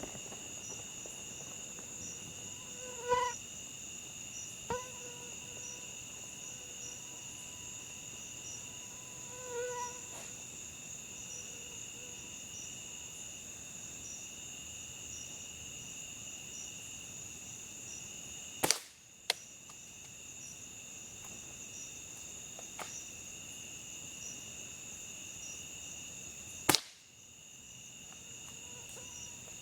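Steady chirring of a night insect chorus, crickets, in two high tones, with a Well MB06 spring airsoft sniper rifle firing. The shots are sharp cracks, the two loudest about eight seconds apart in the second half, with a few fainter clicks and short ringing blips earlier.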